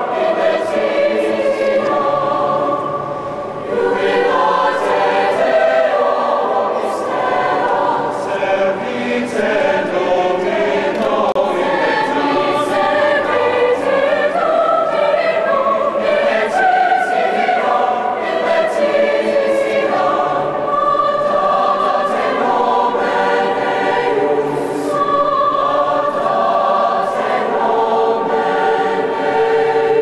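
Mixed choir of young female and male voices singing together in a stone cathedral, with a short drop in loudness about three and a half seconds in.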